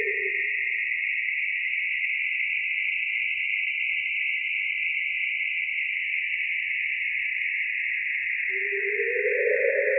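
NASA sonification of Saturn's rings data: a steady, eerie, airy hiss-like drone in the upper-middle range. A lower layer fades out about a second in and swells back in near the end.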